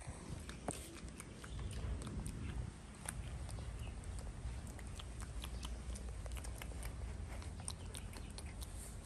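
Faint, scattered clicks and rustles of a young macaque's fingers picking through a person's hair while grooming, over a low steady rumble.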